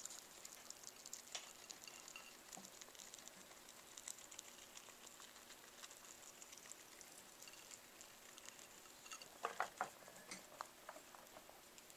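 Pet rats chewing and nibbling peas: faint rapid clicking and crunching, with a few louder knocks and clatters about nine to ten seconds in as one rat reaches into the water bowl for more peas.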